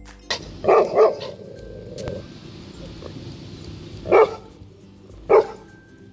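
Goldendoodle barking: a quick run of three barks about half a second in, then two single barks a few seconds later. They are alert barks at an inflatable Christmas lawn decoration the dog takes for a stranger.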